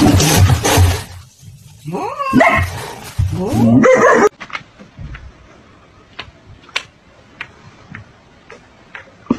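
A dog barking and yelping loudly for about four seconds, then the sound cuts off abruptly, leaving only faint scattered taps.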